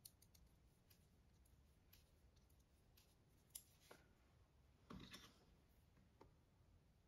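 Faint, sparse clicks of metal circular knitting needles as stitches are worked, the loudest about three and a half seconds in and a short cluster of clicks about five seconds in; otherwise near silence.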